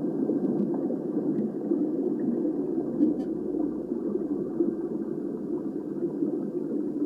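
A steady, muffled low rumble with no clear tones or rhythm.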